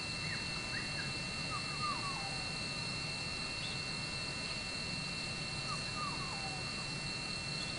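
Steady high-pitched insect chorus, with a bird calling in two short runs of falling chirps, about a second in and again about six seconds in.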